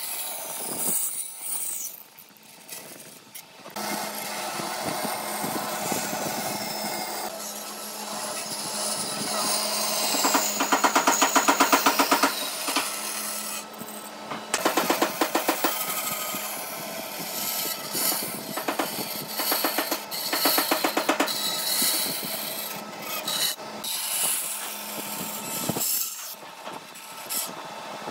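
Woodworking tools working wood: rubbing, rasping strokes over a steady hum, with loud runs of fast, even strokes at several points.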